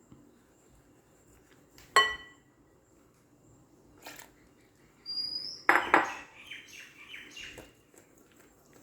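Kitchen utensils and dishes clinking: a sharp, ringing clink about two seconds in, then a louder clatter of knocks and scrapes in the second half, as water and flour are worked together in a bowl for dough.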